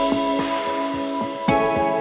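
Background music: calm sustained synthesizer chords with a new chord struck about one and a half seconds in.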